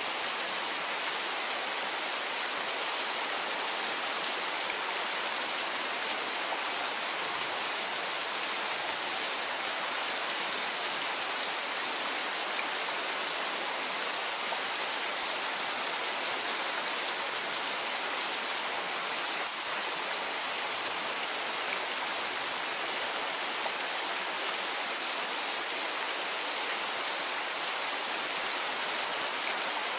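Steady rain: an even, unbroken hiss, strongest in the higher pitches, with no thunder or single drops standing out.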